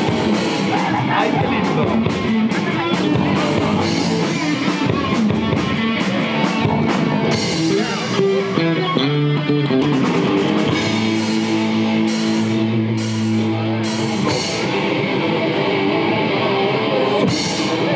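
Live rock band playing: electric guitar, bass guitar and drum kit with repeated cymbal crashes, breaking into a few seconds of held, ringing chords in the middle.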